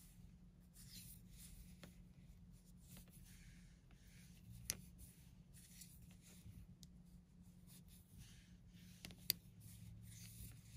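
Faint rustle of bulky cotton yarn drawn over metal knitting needles while purling stitches, with two light clicks of the needle tips, one about halfway through and one near the end.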